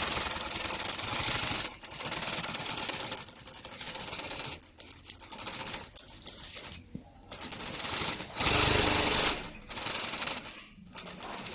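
Zoyer ZY341D direct-drive cylinder-bed unison-feed sewing machine stitching, running in bursts of a second or two and stopping and starting several times as the work is turned under the needle.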